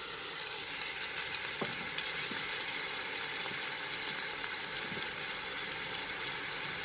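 Steady sizzle of mustard oil frying chopped onions and freshly added washed moong dal in a pressure cooker, with a few faint clicks.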